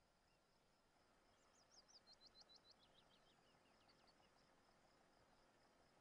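Quiet countryside: a songbird sings a quick run of about ten falling whistled notes starting about a second and a half in, trailing off into a few lower notes. Faint steady high chirring of insects runs beneath it.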